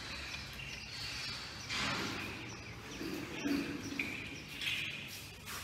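Small birds chirping in the background, with a few short rustling swishes, about two seconds in and twice near the end, as someone moves.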